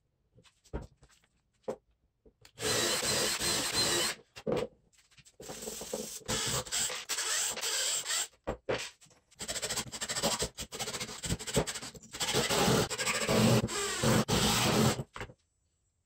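Power drill working into wood in three runs, the last and longest lasting about six seconds, with brief stops between. This is the drilling of the marked holes and driving of screws for mounting the stepper motor on its wooden standoffs.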